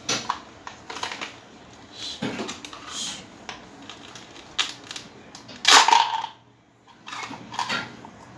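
Plastic toy kitchen pieces clicking and clattering as they are picked up and handled: toy fruit, vegetables and a toy knife. Irregular knocks and taps, loudest about six seconds in.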